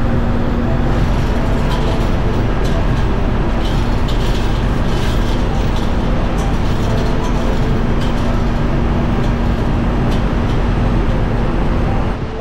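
Loud, steady ship engine-room machinery noise with a constant hum, and a few light metallic clinks from a chain block's chain being handled.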